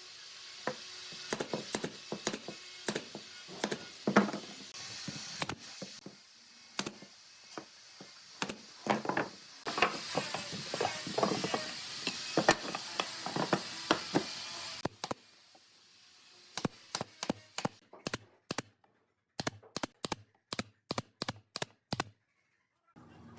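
Hand tools knocking and tapping on wood in irregular strikes over a steady hiss, then a run of sharp, separate taps with silence between them near the end.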